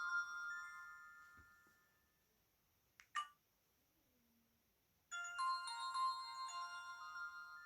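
Alcatel VM202 built-in ringtones playing through the phone's speaker: one chiming melody fades out over the first two seconds, a short click comes about three seconds in, and the next ringtone melody starts a little after five seconds.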